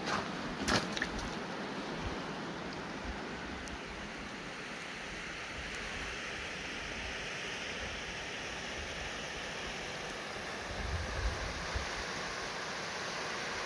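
Steady rush of a creek's flowing water. A couple of brief knocks near the start and a short low rumble about eleven seconds in.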